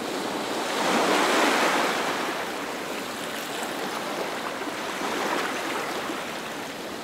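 Logo-intro sound effect of rushing, surf-like water noise that swells about a second in, then eases to a steady wash.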